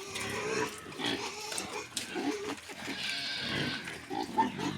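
Pigs grunting and calling while they are hand-fed leaves in their pen.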